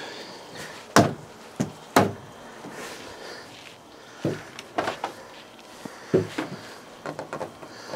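Footsteps and dull wooden knocks on a plank porch deck as someone steps over a wooden picnic-table bench and sits down on it: a handful of separate thuds.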